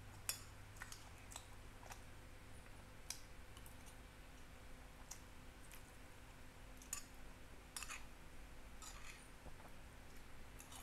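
Faint, scattered clicks of a metal spoon against a glass plate as rice is scooped up, a few per second at most and irregular, over a low steady hum.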